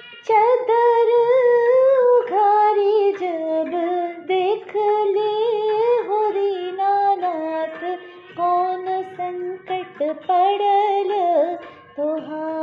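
A woman singing a Chhath geet, a devotional folk song, in long, gliding, ornamented phrases.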